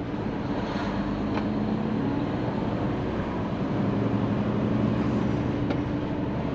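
Hino semi-truck's diesel engine running under way, heard from inside the cab, with a steady low hum that grows a little louder about four seconds in. A few faint clicks sound over it.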